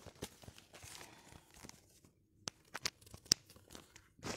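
Plastic bags and packaging crinkling and rustling as goods are handled, with irregular sharp crackles, a few louder ones in the second half.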